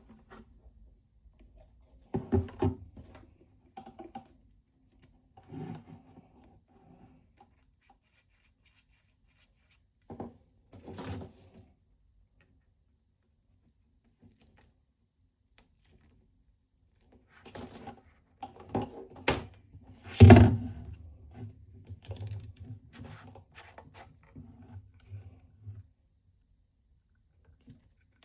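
Irregular clicks, knocks and light rattles of small objects being handled, in separate clusters with quiet gaps between, the loudest knock about twenty seconds in.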